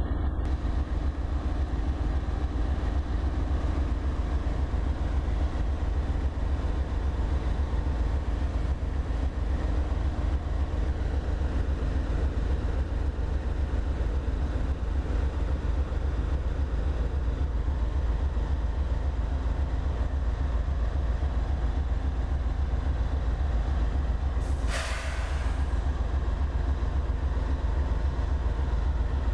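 Diesel-electric freight locomotives idling at a standstill, a steady deep engine rumble. A short hiss lasting about a second cuts in near the end.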